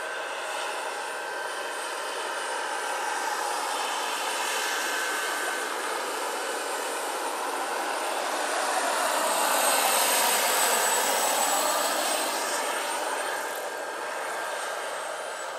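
Two 1/5-scale model Kamov Ka-32 turbine helicopters in flight: a steady high turbine whine over the beat of their coaxial rotors. The sound swells to its loudest about ten seconds in as one helicopter comes closer, then eases off.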